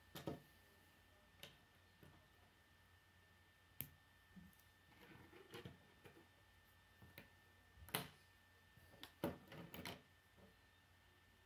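Plastic K'nex pieces handled and fitted together, with faint, irregular clicks and knocks of plastic on plastic and on the wooden table, a small cluster of them near the end.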